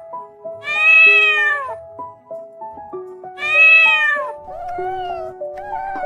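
A kitten meowing: two long drawn-out meows, each rising then falling in pitch, over background music with held notes.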